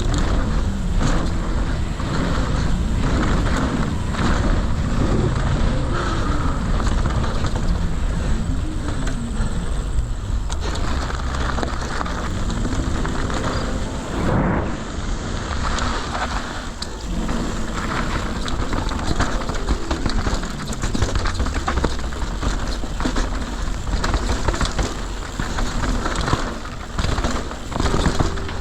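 Norco Shore mountain bike riding downhill on dirt: steady wind noise on the microphone with tyre rumble and the rattle of the bike over rough ground.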